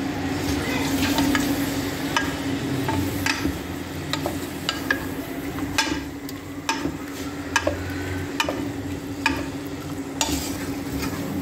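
Marinated chicken strips frying in oil in a stainless steel pan, sizzling, while a spatula stirs them with repeated irregular scrapes and clicks against the metal.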